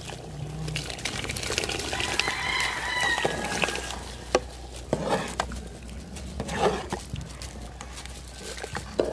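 A rooster crows once, one long call about two seconds in. A metal ladle scrapes and knocks against the pot as a thick glutinous-rice mixture is stirred, with sharp knocks through the second half.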